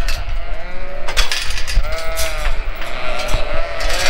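Ewes and lambs bleating, several calls overlapping and following each other, over a low rumble of wind on the microphone.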